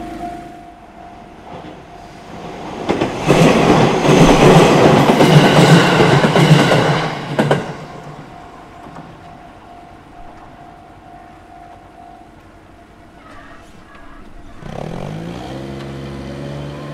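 A JR Minobu Line train passes over a level crossing, loud for about four and a half seconds with wheel and running noise, while the crossing's warning bell rings with a steady pulsing tone. The bell stops about twelve seconds in. Near the end a vehicle's engine or motor note climbs as it pulls away.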